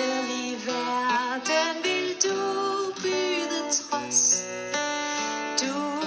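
A woman singing a slow Danish song with vibrato, accompanied by a plucked and strummed acoustic guitar.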